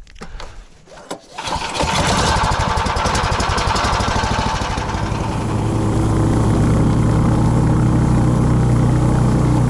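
A few clicks, then a small petrol engine on a snow vehicle starts about a second and a half in, runs fast, and settles into a steady idle about six seconds in.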